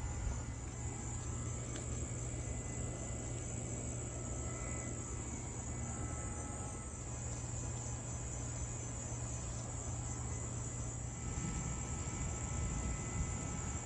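Insects trilling steadily in a high-pitched, evenly pulsing chorus, over a low steady hum.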